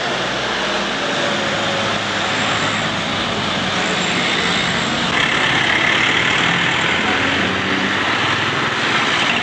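Steady street traffic noise with vehicle engines running close by, growing a little brighter and hissier about halfway through.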